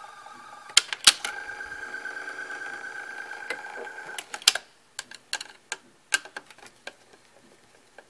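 Early-1980s Hitachi top-load VCR's tape-transport mechanism running with a steady whine and a few sharp clicks. The whine stops about four seconds in, leaving scattered clicks. The fault is in a transport motor, which the owner puts down to slipping, worn-out rubber.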